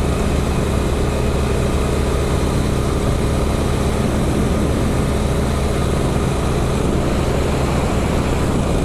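Motorcycle engine running at a steady speed on the move, under a steady rush of wind noise.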